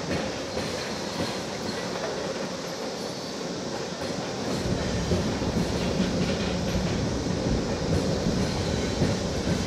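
Freight train rolling past: steady rail noise with wheel clacks over the joints, and a deeper rumble that grows louder about halfway through.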